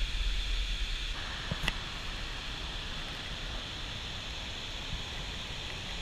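Steady rushing roar of Victoria Falls pouring into the gorge, with wind buffeting the microphone in low rumbles, heaviest in the first second. A short click about a second and a half in.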